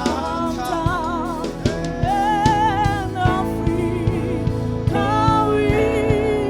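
Gospel worship music: a voice holding long notes with a wavering vibrato over sustained instrumental backing and a steady beat.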